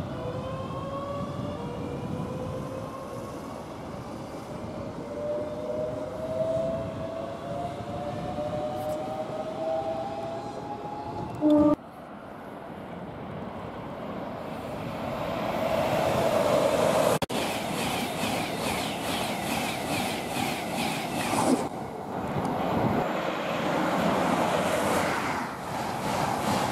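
Electric multiple unit pulling away, the whine of its traction motors rising steadily in pitch as it gathers speed. After a short break near the middle, an express passenger train approaches and runs through at speed, a loud rushing of wheels on rail and air that builds and holds to the end.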